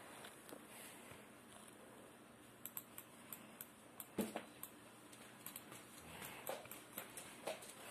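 Quiet room tone with scattered faint, short clicks and taps, a few a second at times.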